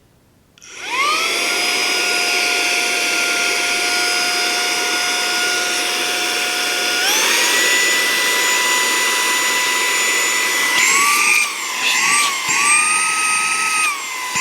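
Small cordless handheld vacuum (XCool 4-in-1) switched on: its motor spins up to a steady high-pitched whine, then jumps to a higher pitch about halfway through when switched into its more powerful mode. Near the end the whine dips and recovers several times.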